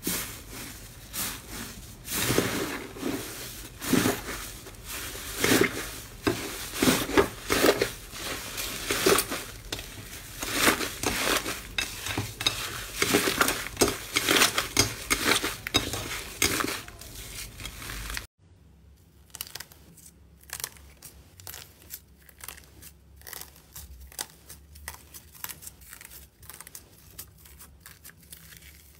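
Hands kneading and pressing a large mound of fluffy, crumbly green slime, with a dense run of loud squishes and pops as air pockets burst. About 18 seconds in it cuts to quieter, finer crinkling as a white slime topped with silver foil flakes is pressed.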